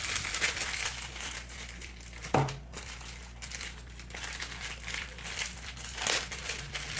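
Crinkling and rustling of plastic packaging being handled, with a sharp knock about two and a half seconds in and a lighter one near the end.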